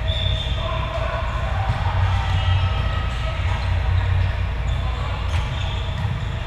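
Indoor volleyball play in a large echoing gym: a few sharp ball hits, the clearest about five seconds in, over players' voices and a steady low hum from the hall.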